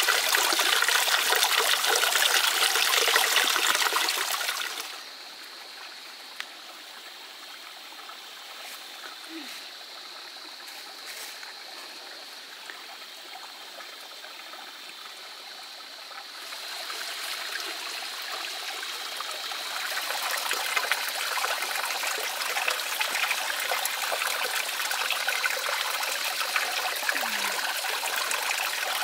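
Stream water running, loud for the first few seconds, dropping to a much fainter flow about five seconds in, then growing louder again from about seventeen seconds, with a thin steady high tone underneath.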